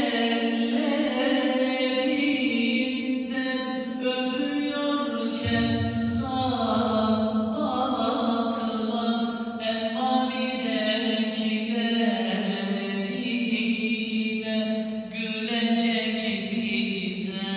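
A man's voice chanting a kaside, a Turkish Islamic devotional ode, in long held notes that waver and turn up and down in pitch.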